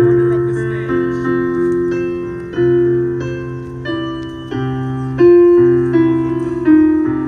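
Slow keyboard music in a piano sound: chords struck about once a second and left to ring and fade.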